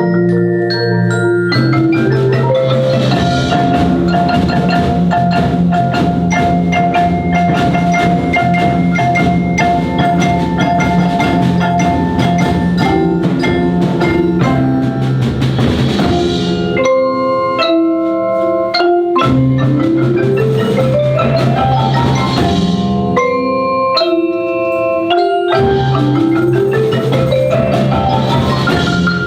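Percussion ensemble playing mallet keyboard instruments such as marimba: dense struck notes over held low notes, with quick rising scale runs about two-thirds of the way through and again near the end.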